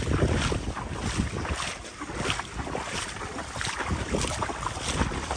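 Someone wading through floodwater, irregular sloshing and splashing of the water with each step, with wind buffeting the microphone.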